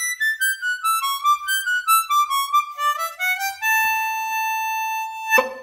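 Hohner Special 20 diatonic harmonica in D playing the closing phrase of a fast reel: a quick run of single notes climbs to a long held final note (blow 6, A) about three and a half seconds in. The note ends in a short sharp burst and stops.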